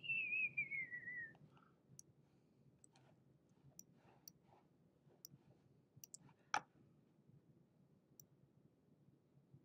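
Sparse computer mouse clicks, about eight separate clicks spread irregularly, the loudest a little past the middle. A short falling whistle-like tone is heard near the start.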